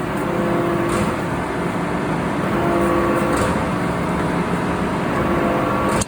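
Steady industrial machinery noise: a dense, even din with a low hum, with a few faint ticks.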